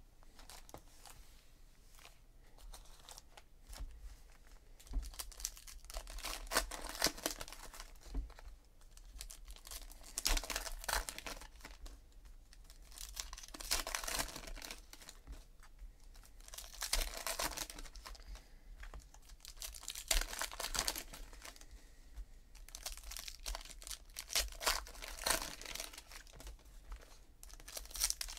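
2017 Panini Classics football card pack wrappers being torn open and crinkled by hand. The tearing and crackling comes in repeated bursts every few seconds, one pack after another, starting about four seconds in.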